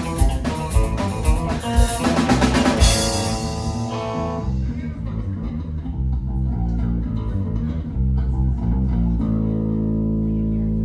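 Live band with guitar, bass and drum kit finishing a song: full band with drums up to a cymbal crash about three seconds in, then the guitar and bass ringing on, and a last chord held steady near the end.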